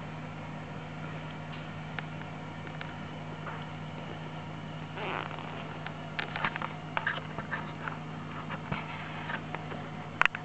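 Newborn chihuahua puppy making small squeaks and snuffles as it burrows into a fleece blanket, starting about halfway through, with a louder sharp sound near the end. A steady low hum runs underneath.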